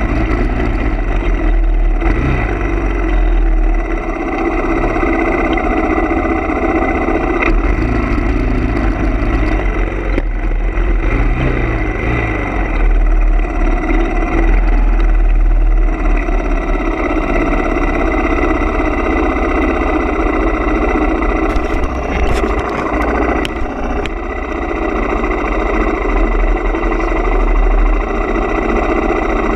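Background rock music dominated by heavily distorted electric guitar, playing continuously and loudly.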